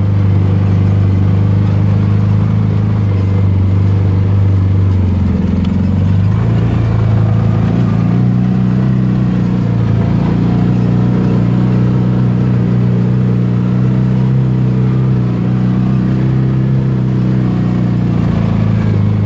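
Side-by-side UTV engine running steadily under way on a rocky dirt trail. Its note rises a little about six seconds in.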